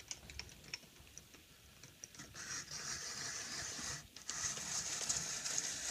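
Hand-cranked apple peeler-corer-slicer at work: a few light clicks, then from about two seconds in a steady scraping hiss as the blade shaves a spiral strip of peel from the turning apple, with a short break just after the middle.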